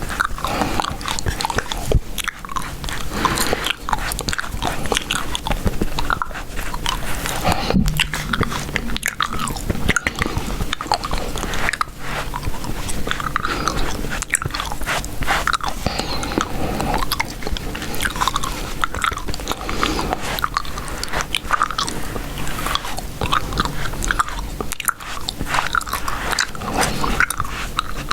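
Close-miked chewing gum: continuous wet, clicking mouth sounds of gum being chewed.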